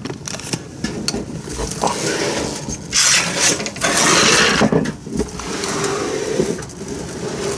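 A Creality 3D printer being dragged across a surface by hand: scattered clicks and knocks, with a louder stretch of scraping and rattling about three seconds in that lasts nearly two seconds.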